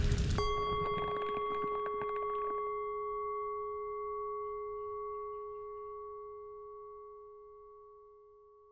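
The soundtrack's loud music cuts off and a single struck, bell-like tone rings out, fading slowly over about eight seconds.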